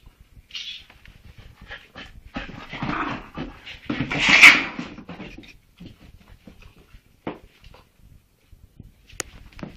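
A Leonberger puppy and a Chihuahua play-fighting: dog whimpering and yipping, loudest in one sharp cry about four and a half seconds in, with scattered short clicks and knocks from the scuffle.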